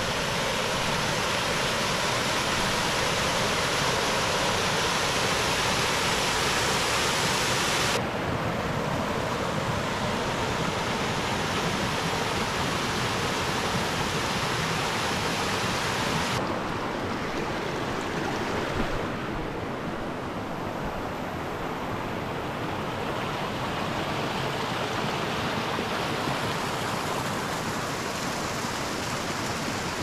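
Small waterfall on a creek, water rushing steadily. About eight seconds in, and again about halfway, the sound switches abruptly and grows duller as the high hiss drops away.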